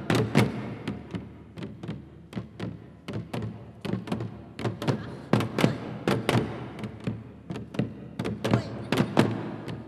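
Korean buk barrel drums struck with wooden sticks in an ensemble drumming piece: sharp hits coming two or three a second, bunched into quick flurries, each ringing briefly in a reverberant hall.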